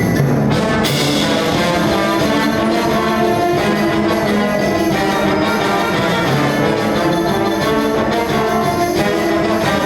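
High school wind band playing live, with brass prominent in full held chords and a percussion hit about a second in.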